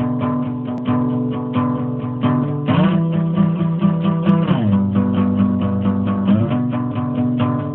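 Acoustic guitar played with quick, even picked strokes, about five a second, ringing out held chords and changing chord three times.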